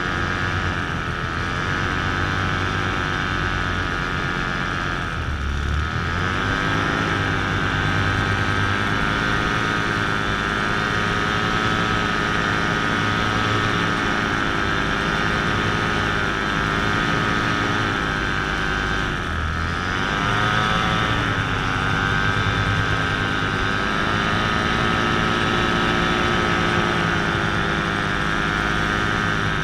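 Paramotor engine driving its propeller at a steady cruise, throttled back briefly twice, about five seconds in and again near the twenty-second mark, the pitch dipping and then climbing back each time.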